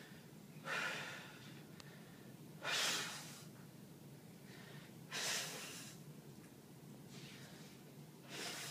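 A person breathing hard: four short, forceful breaths, one every two to three seconds, each starting sharply and fading within about half a second.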